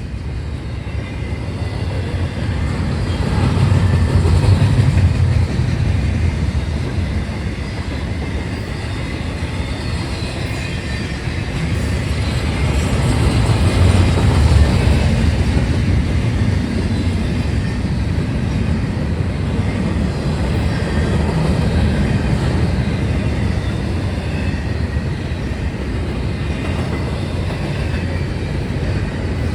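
Intermodal freight train's well cars and spine cars rolling past, a steady rumble of steel wheels on rail that swells louder a few seconds in and again in the middle.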